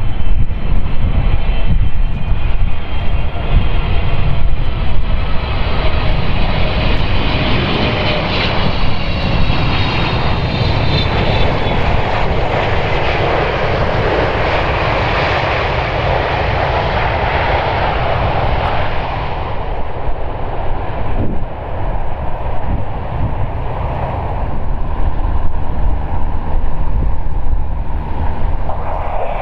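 Boeing 777-300ER's GE90-115B turbofans landing: first a steady multi-tone fan whine over a low rumble, then a louder rushing roar as the jet rolls out on the runway, typical of reverse thrust. The roar dies down sharply about twenty seconds in, leaving a quieter rumble.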